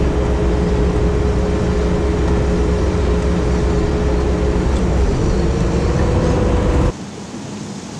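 Sherp amphibious ATV's diesel engine running under load, heard from inside the cab, with a steady whine that rises slightly near the end. About seven seconds in it cuts off abruptly to a quieter, even hiss.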